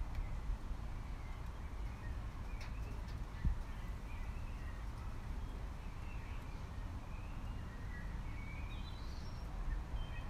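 Birds chirping faintly and intermittently over a low, steady outdoor rumble, with one soft thump about three and a half seconds in.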